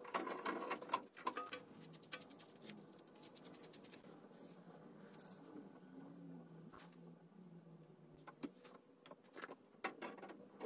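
Faint, scattered small clicks and light rattling, like hardware being handled. They come thick in the first two seconds, then only a few isolated clicks follow.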